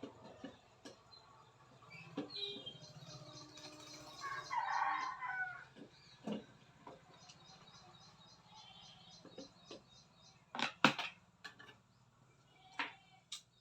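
Scattered sharp clicks and knocks of hard parts being handled, the loudest pair about eleven seconds in, with a short wavering animal call, like a bird's, about four seconds in.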